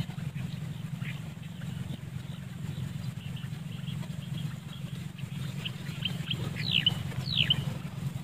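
Birds calling with scattered short high chirps, then two clear falling whistled calls near the end, over a steady low hum.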